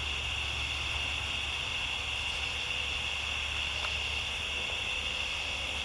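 Steady chorus of night insects, crickets or katydids, a constant high-pitched trill, with a low steady hum underneath.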